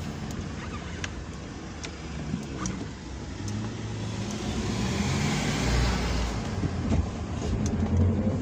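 Car engine and road noise heard from inside the cabin while driving, growing louder about three seconds in as the engine note comes up.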